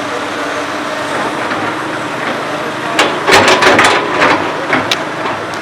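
Komatsu PC200 hydraulic excavator running steadily, with a burst of loud clattering knocks and scrapes from about three seconds in that lasts some two seconds.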